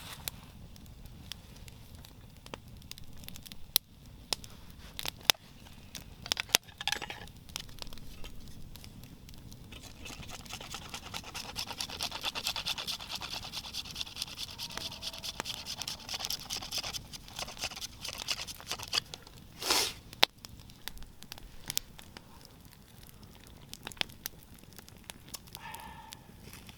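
Rustling and scraping of branches and dry leaves being handled, with scattered sharp snaps and clicks and a steadier stretch of scraping through the middle.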